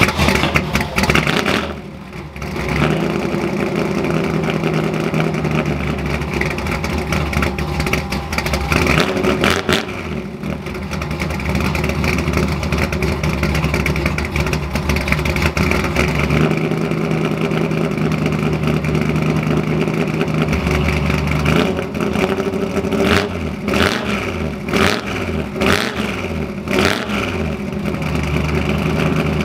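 Ford F100 pickup's V8 engine running through its old homemade exhaust with side-exit tips, idling and being revved, with a run of quick throttle blips near the end.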